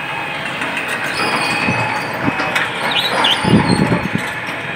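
Heavy machinery running steadily from a long-reach hydraulic excavator at work on demolition, with a few knocks and a heavier rumble of knocks about three and a half seconds in.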